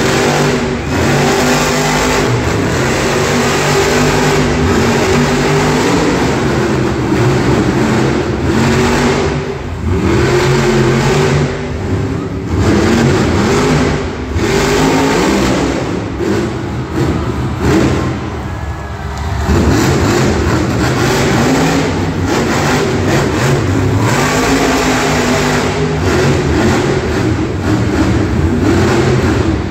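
Grave Digger monster truck's supercharged V8 engine revving hard over and over, its pitch rising and falling as the truck is driven through wheelies and stands on the dirt. The engine eases off briefly a few times along the way.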